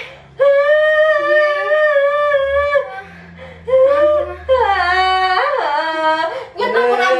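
A young woman's drawn-out wailing cries: one long high cry held for over two seconds, then several shorter cries that bend up and down in pitch.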